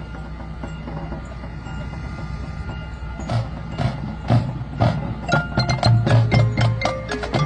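Marching band percussion playing: soft sustained ringing tones at first, then from about three seconds in a building series of mallet-keyboard and chime strikes with low drum hits, growing louder.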